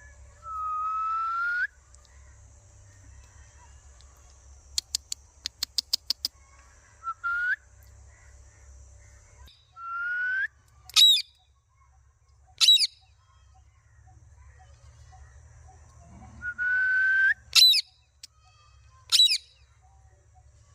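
Pet parrot whistling and calling: several long whistles, each rising a little at the end, and four loud, short, shrill calls that sweep steeply down in pitch. A quick run of about eight clicks comes about five seconds in.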